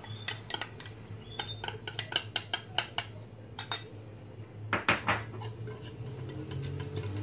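A metal spoon clinking and scraping against a small ceramic bowl and a saucepan rim as cornstarch is tipped into water, many quick light clinks, with a few louder knocks about five seconds in. A wire whisk then starts stirring in the pan.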